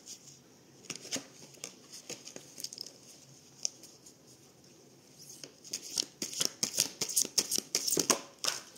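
Oracle cards being shuffled by hand: a few light flicks and rustles, then from about five seconds in a dense run of quick card slaps and rustling.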